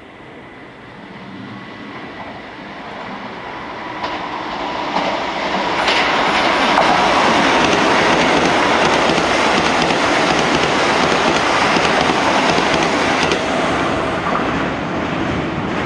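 A Keisei electric train passing through a station at speed, its wheels clattering over the rail joints. The sound builds over the first six seconds as it nears, stays loud while the cars go by, and fades near the end.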